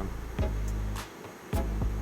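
Background music with a deep bass line: low notes held under sharp attacks, breaking off briefly about a second in before the next note comes in.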